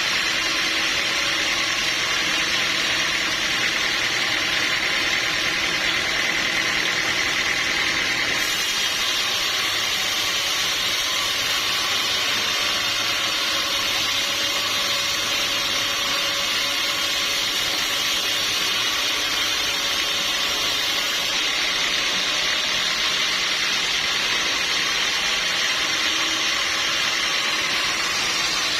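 Sawmill machinery running steadily while sawing a teak log. A higher hiss comes in about eight seconds in and drops away about twenty-one seconds in.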